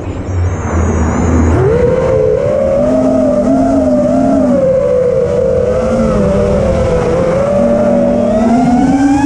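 FPV quadcopter's motors and propellers whining. The pitch wavers up and down with the throttle. The whine is weak for about the first second and a half, then comes back strongly and rises in pitch near the end.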